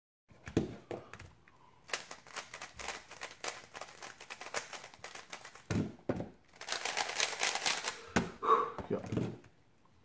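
A GAN 356 XS speedcube being turned quickly by hand: a clatter of rapid plastic clicks in runs, with the longest and densest flurry a little past the middle. A few dull thumps sound among the clicks.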